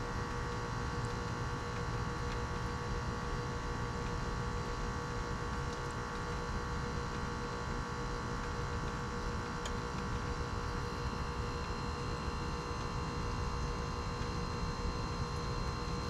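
Lennox Merit heat pump outdoor unit running during its defrost cycle: a steady hum with several constant tones over an even low noise.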